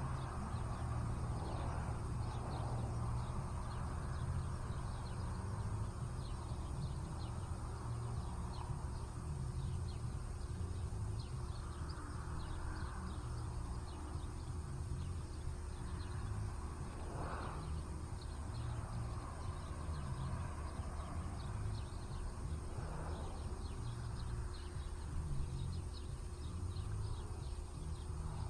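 Outdoor background noise: a steady low rumble with faint, scattered chirps and a thin, steady high whine.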